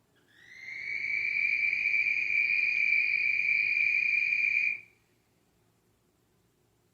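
An unidentified night creature's call: one long, high, steady whistling note with a slight upward slide as it swells in over about a second, held for about four seconds, then cut off abruptly.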